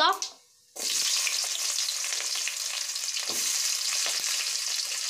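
Sliced onions sizzling in hot oil in an aluminium kadai, starting suddenly about a second in and running steadily, with one brief knock near the middle.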